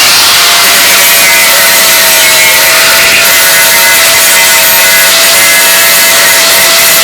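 Angle grinder running steadily against metal, a continuous loud abrasive grinding with a steady motor whine, as in dressing down welds on a bus door frame.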